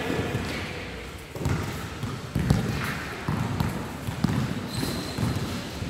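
Basketball being dribbled on a hard court floor during play: a few irregular bounces, roughly a second apart.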